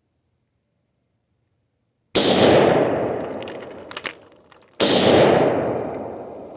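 Two loud, sharp blasts about two and a half seconds apart, each dying away in a long echo: rifle shots at a tannerite target.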